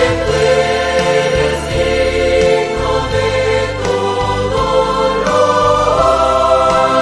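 Large mixed choir singing a Spanish-language worship song in several parts, holding long chords that change every second or so.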